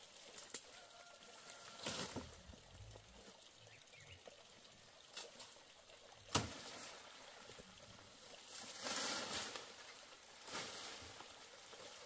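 Brush being cleared with a long-handled hooked blade: a few sharp chops into stems, the loudest about six seconds in, with rustling of leaves and stalks in between.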